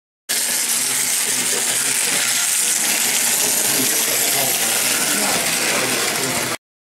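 Model train running on its track: a steady, even rattle and whir of wheels on rail and the small locomotive motor, with faint voices behind. It cuts in just after the start and stops abruptly shortly before the end.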